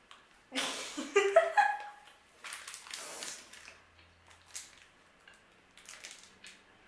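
Crinkling of a plastic snack-bar wrapper in two bursts, with a short vocal sound rising in pitch about a second in, then soft bites and chewing of the chocolate-coated bar.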